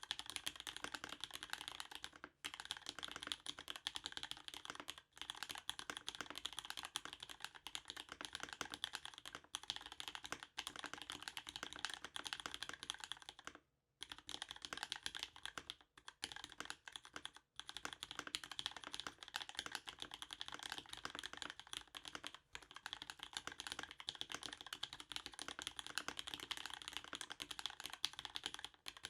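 Continuous fast typing on a custom mechanical keyboard with lubed vintage Cherry MX Black linear switches on 67 g springs, an aluminum plate and GMK keycaps, with dense rapid keystrokes and a few brief pauses, the longest about 14 seconds in.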